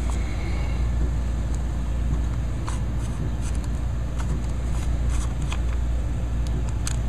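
Faint light clicks and scrapes of a screwdriver turning out the carburetor mounting screws in a chainsaw's carburetor housing, scattered through the second half, over a steady low rumble.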